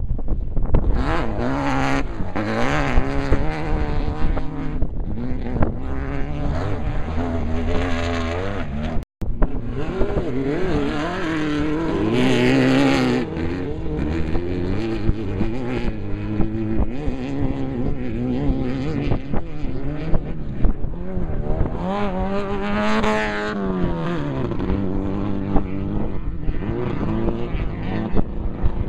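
Off-road race vehicle's engine running hard, its pitch rising and falling again and again as it revs up and shifts, over a steady rush of noise. The sound cuts out for an instant about nine seconds in.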